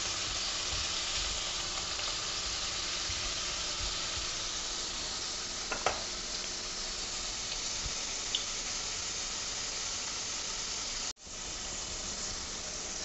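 Potato pieces sizzling steadily as they fry in hot oil in a kadai over a medium gas flame. The sound drops out for an instant about eleven seconds in.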